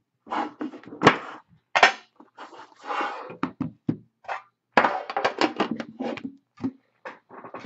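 Metal collector's tin being opened and handled, and a shrink-wrapped card box lifted out and set down on a wooden desk: an irregular run of knocks and clatters with rustling.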